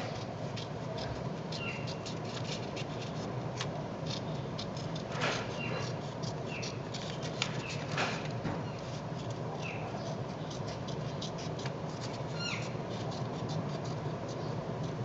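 Small Victorinox 58 mm classic scissors snipping: many quick small clicks, a few louder ones about five and eight seconds in, over a steady low hum. Short high falling chirps come now and then.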